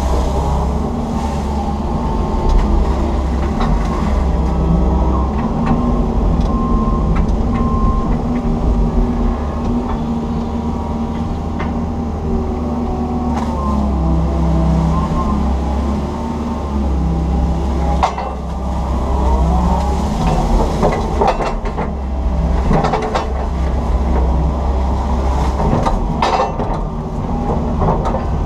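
Komatsu PC160 excavator's diesel engine and hydraulics running steadily under load as the boom and bucket dig, heard from inside the cab. A number of sharp knocks and clanks come in the second half.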